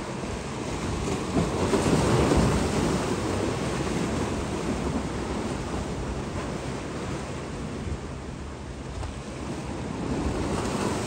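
Sea waves washing against the concrete tetrapods of a breakwater, swelling about two seconds in, with wind buffeting the microphone.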